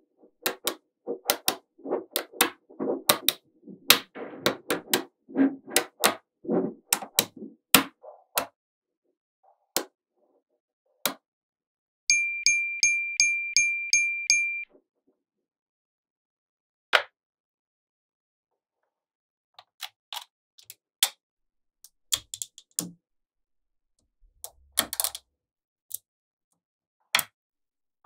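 Small magnetic balls clicking and clattering as they are snapped together by hand, a quick run of sharp clicks for the first eight seconds, then scattered single clicks later on. Near the middle a steady high ringing tone with about four ticks a second sounds for about two and a half seconds.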